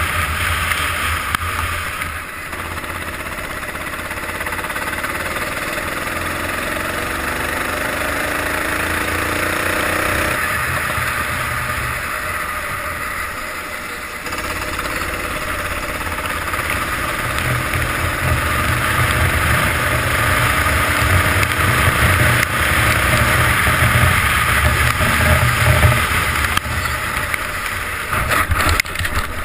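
Go-kart engine heard from on board the kart, its pitch rising and falling with the throttle: it drops about 2 seconds in and again about 14 seconds in, then climbs back. Near the end come a few sharp knocks as the kart runs over the kerb.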